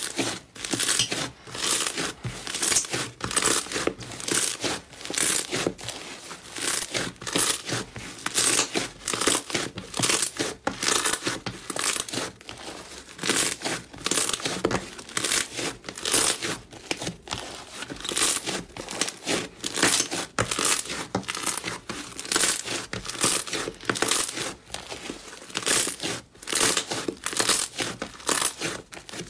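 Thick fluffy slime squeezed, kneaded and pulled apart by hand, crackling and popping as trapped air bursts and strands tear, in a dense run of sharp crackles several times a second.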